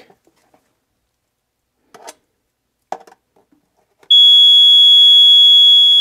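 Basement Watchdog BWD-HWA water alarm sounding a loud, steady, high-pitched tone that starts about four seconds in and stops near the end. Its sensor is sitting in water, the signal that the water has risen above where the sump pump should have pumped it out. Two faint knocks come before it.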